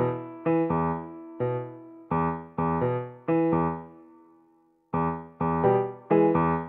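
Background music: a light piano tune of struck notes and chords, each ringing and fading, with a short pause about four seconds in before the tune starts again.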